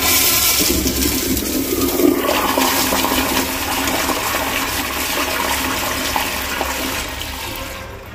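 A 2000s Crane Whirlton toilet flushing: water rushes and swirls down the bowl, loudest in the first two seconds and slowly easing off toward the end.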